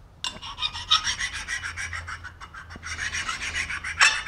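Metal body of a Lie-Nielsen rabbet block plane rubbed back and forth on a wet 1000-grit sharpening stone in quick scratchy strokes, starting a moment in, to round off its sharp corners.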